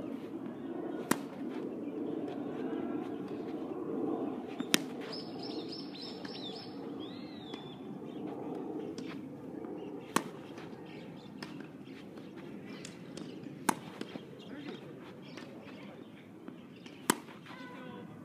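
Tennis ball struck by a racket: five loud, sharp pops a few seconds apart as a player hits forehands in a rally, with fainter knocks of the far player's returns and bounces between them. Distant voices murmur throughout, and a bird chirps a quick run of notes about five seconds in.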